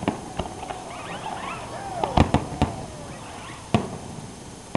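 Aerial fireworks bursting: scattered sharp bangs and pops, with a cluster of loud reports about two seconds in and another single bang near four seconds.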